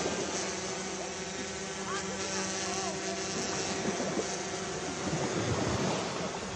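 A steady, even mechanical drone like an idling engine runs throughout, with indistinct voices talking over it, a little louder about five to six seconds in.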